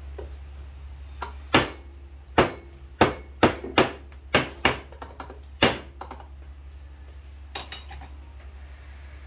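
A series of about eight sharp knocks from a metal espresso portafilter full of ground coffee being tapped on the wooden counter to settle and level the grounds before tamping, with two faint knocks near the end.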